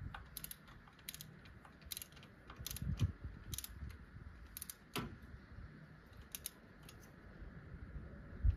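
Ratchet wrench clicking in short spaced sets as bolts are run down by hand, with a dull knock of tool or part handling about three seconds in.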